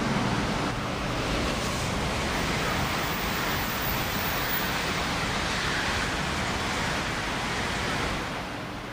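A 300 series Shinkansen passing at speed: a steady rush of air and wheel noise that drops away about eight seconds in as the train goes by.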